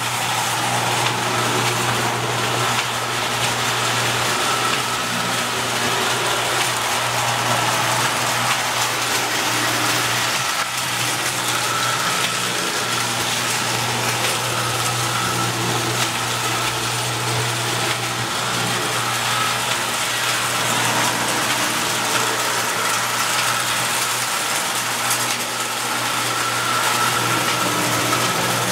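Marx toy electric train running steadily around its track: a constant motor hum with rattling wheels on tinplate rail.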